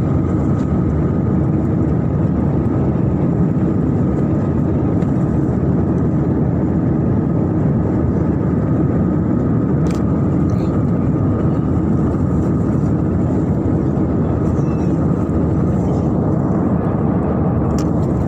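Jet airliner's engine and airflow noise, a steady rush with a thin constant whine, unchanging throughout.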